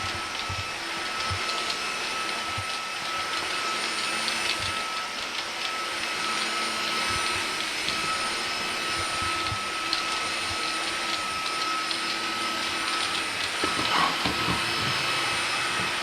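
Vactidy V9 cordless stick vacuum with a brushless motor running steadily with a constant high whine, its powered brush head going over carpet.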